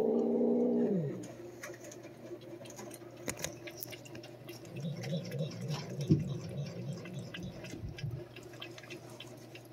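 A cat's low, drawn-out growl that trails off about a second in, then small wet licking clicks as the cat laps at a squeeze-tube treat, with a low wavering growl again in the middle.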